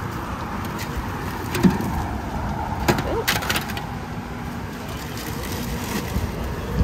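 A steady rush of passing road traffic and wind on an open highway bridge, with a few brief clicks and crinkles a couple of seconds in.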